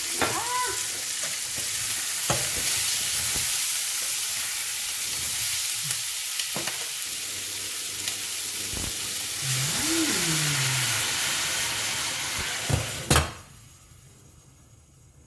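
Food sizzling in a hot cooking pan, with occasional sharp clicks of a utensil on the pan. A loud knock comes near the end, and the sizzling drops away suddenly just after it.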